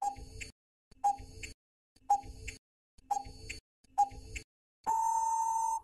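Countdown timer sound effect: five short ticks, one a second, then a long steady beep about a second long that marks the end of the countdown.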